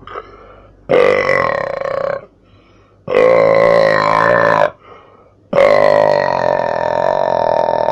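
A person burping three times in a row, each burp long and loud. The third is drawn out for more than two seconds.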